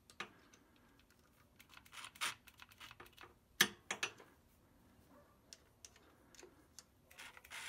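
Faint, scattered clicks and taps of tools and bolts being handled, the sharpest about three and a half seconds in.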